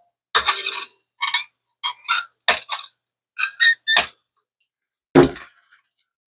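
Old strings being taken off an Epiphone Les Paul Studio electric guitar: a run of short metallic clicks and clinks. About five seconds in comes a louder thunk, followed by a brief high ring.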